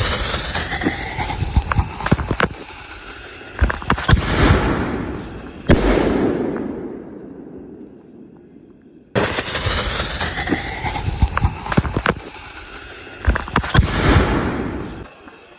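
Red Apple Calavera consumer firework going off: a fizzing fuse, then a run of sharp bangs and pops, loudest about four and six seconds in, trailing off into a fading hiss. About nine seconds in the sound cuts back in abruptly with another run of bangs and pops.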